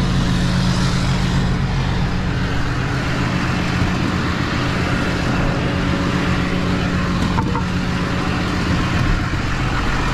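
Tow truck engine running steadily at idle, a low even hum.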